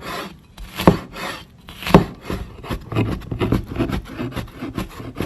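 Kitchen knife mincing fresh ginger on a cutting board: a run of quick chops, with harder strikes about one and two seconds in.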